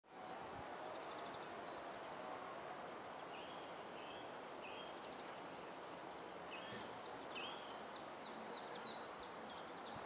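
Wind blowing steadily through pine and blossoming apricot branches, an even rustling hiss. Birds chirp over it in short high notes, more often in the second half.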